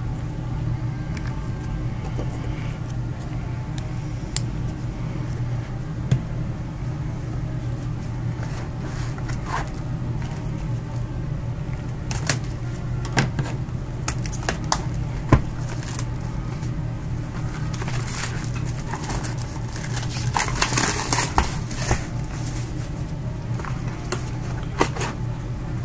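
Gloved hands handling a cardboard trading-card box: scattered light taps and clicks, with a stretch of crinkly rustling a little past the middle, over a steady low hum.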